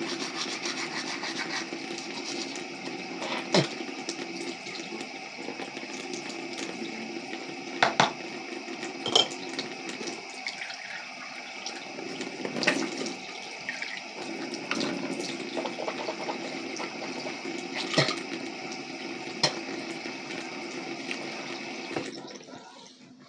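Bathroom sink tap running steadily, with a few sharp knocks and clatters as things are handled at the basin. The water stops near the end.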